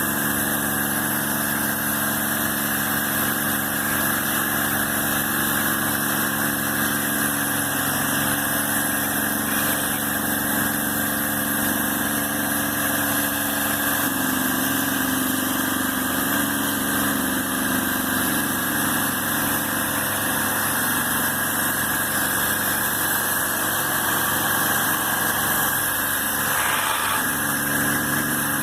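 A machine motor running steadily, its hum shifting in pitch a few times and dipping briefly near the end.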